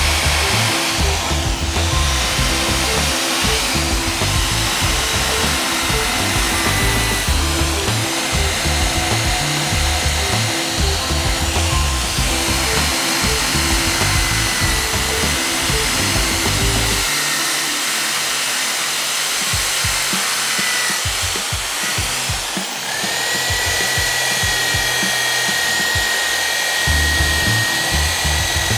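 Cordless drill spinning a brass wire wheel brush against a rusty steel wrench, scrubbing off the rust: a steady motor whine with the bristles hissing on the metal. The whine stands out more clearly about two-thirds of the way through.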